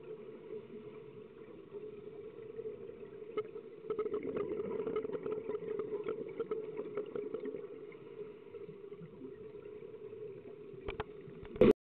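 Muffled underwater sound from a scuba diver's camera: a steady low hum with scattered small clicks, swelling with the crackle of exhaled scuba bubbles for a few seconds in the middle. A brief loud burst comes just before the sound cuts off.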